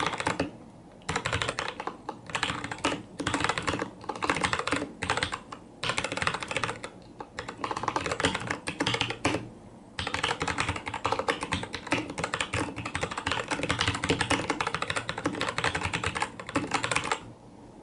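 Fast typing on a mechanical keyboard with Cherry MX Brown switches: a rapid clatter of keystrokes in bursts with short pauses, stopping shortly before the end.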